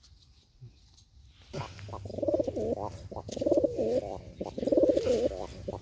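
Domestic pigeons cooing in repeated warbling bouts, starting about a second and a half in.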